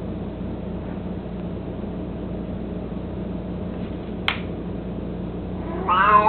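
An elderly domestic cat begins to meow near the end, a rising then falling call, over a steady low hum. A single sharp click sounds about four seconds in.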